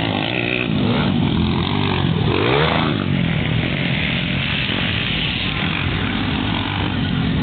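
Motocross dirt bike engines running hard on the track, revving up and down, with a sharp rise and fall in pitch between two and three seconds in.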